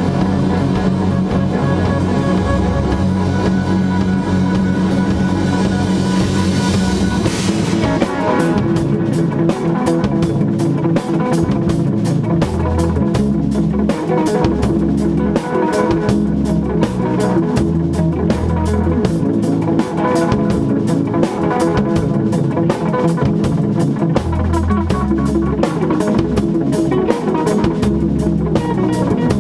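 Instrumental rock band playing live: distorted electric guitars over shifting low bass notes and a drum kit. For the first seven seconds or so the guitars hold a sustained chord. Then the drums come in with fast, steady cymbal hits.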